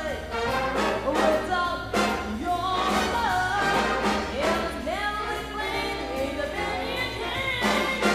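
Jazz big band playing a swing arrangement behind a female vocalist singing the melody, with bass and drums keeping the beat under saxophones and brass.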